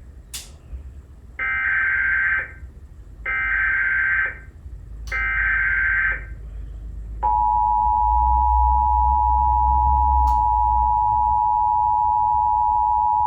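Emergency Alert System Required Monthly Test coming over the radio: three one-second bursts of SAME header data tones, a buzzing warble, a little under a second apart, then about seven seconds in the steady two-tone EAS attention signal starts and holds. It marks the opening of the monthly test alert, which the spoken test message follows.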